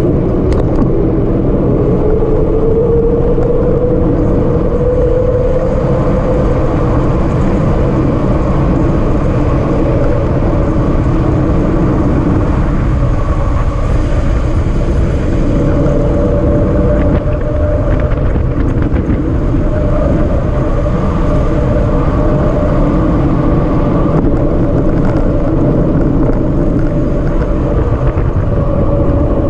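Wind rushing over the microphone on a fast downhill bicycle ride, a steady, loud rumble with a faint hum running through it.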